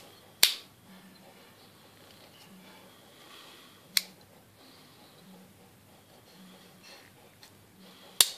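Steel tools of a folding multitool clicking as its blade and saw are folded out and back in: three sharp clicks roughly four seconds apart, with faint handling rustle between.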